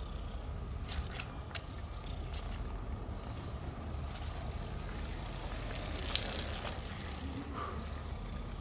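Steady low outdoor rumble, like background traffic, with a few light clicks about a second in and a brief rustle with a sharp click later on.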